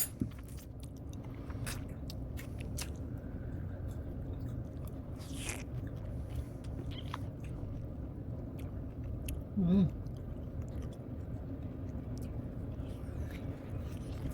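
Close-up mouth sounds of a person chewing cake, with small wet clicks and smacks over a steady low room hum. About ten seconds in there is a brief hum of the voice.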